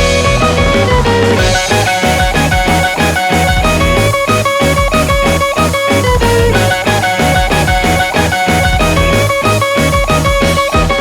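Background music: an upbeat guitar-led instrumental track with a steady beat.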